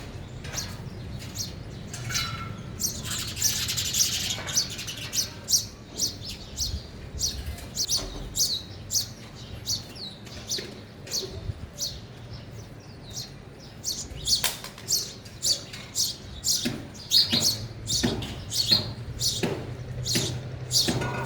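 House sparrows chirping: many short, high chirps repeating throughout, with a dense cluster of chirping about three to four seconds in.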